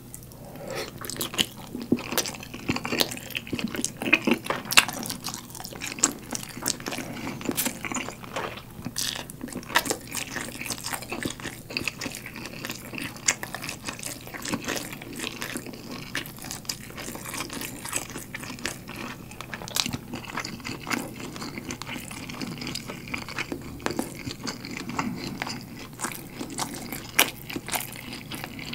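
Close-miked eating sounds: biting into and chewing a galbi-sauce glazed grilled chicken drumstick, a steady run of many small mouth clicks and smacks.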